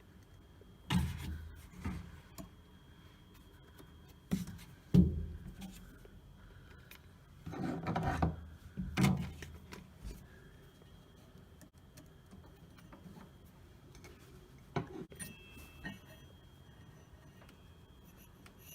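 Scattered knocks and clunks, with a scraping rub about eight seconds in, from hands working on a washing machine during a repair.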